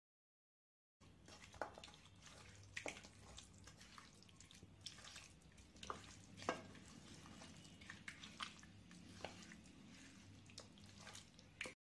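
Hand squishing chicken pieces in a thick yogurt-and-spice marinade in a metal kadai: soft wet squelches and scattered clicks, starting about a second in, over a low steady hum.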